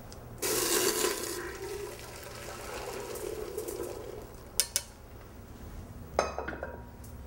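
Boiled somen noodles and their hot water poured from a saucepan through a mesh strainer into a stainless stockpot. A sudden splash starts it about half a second in, then a steady pour runs for a few seconds. A few sharp metal clinks of cookware follow near the end.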